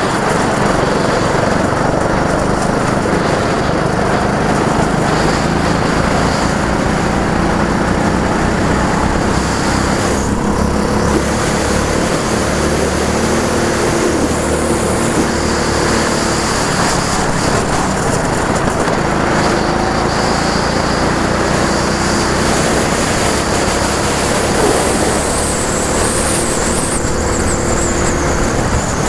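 Go-kart engines running hard, their pitch rising and falling as the karts speed up and slow down, over a steady rush of noise.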